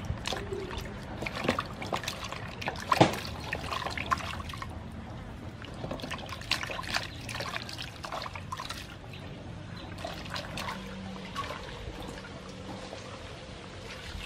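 Vegetables being washed by hand in a large aluminium basin of water: irregular splashing, sloshing and dripping, with one louder hit about three seconds in.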